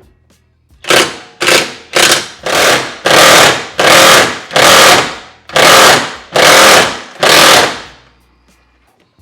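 Impact wrench firing in about nine short bursts, the later bursts longer, working a motor mount bolt.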